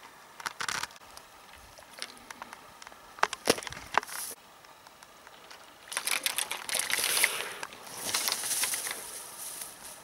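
A few sharp clicks, then a hooked grayling splashing at the surface as it is lifted out of the water, followed by rustling and crackling as it is swung through dry grass onto the bank.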